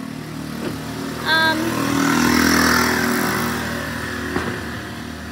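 A car passing on the street: engine and tyre noise swell to a peak about two and a half seconds in, then fade away.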